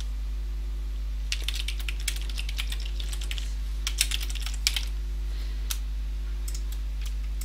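Typing on a computer keyboard: a quick run of keystrokes starting about a second in and lasting about three and a half seconds, then a few separate clicks, over a steady low hum.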